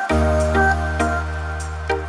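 Background music: soft instrumental with a sustained bass note and plucked notes at an even pace.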